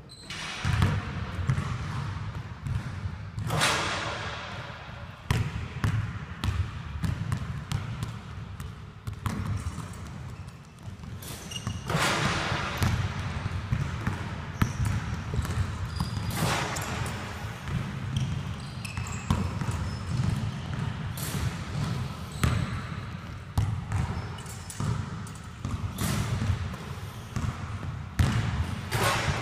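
A basketball bouncing again and again on a hardwood gym floor, with a few louder, longer rushes of noise at intervals.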